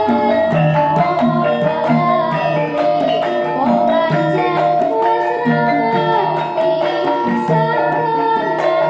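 Javanese gamelan music played live: bronze pot gongs and metallophones ringing in held, overlapping notes over a low beat, with a girl's voice singing through a microphone.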